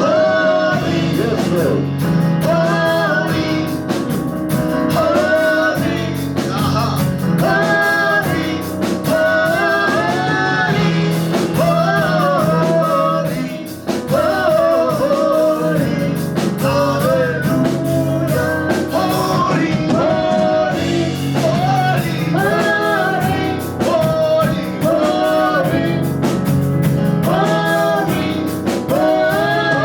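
Worship song performed live: singing carried over instrumental accompaniment.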